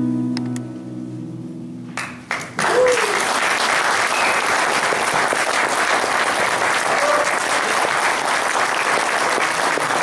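Final keyboard chord of the song sustaining and fading out, then the audience breaks into applause about two seconds in, which carries on steadily, with a brief cheer near its start.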